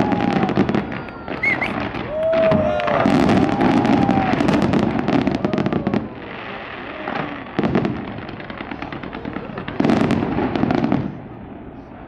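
Aerial fireworks going off: dense crackling and popping bursts, with a few brief whistling glides in the first seconds. The crackle thins out about halfway through, swells again once, then dies down near the end.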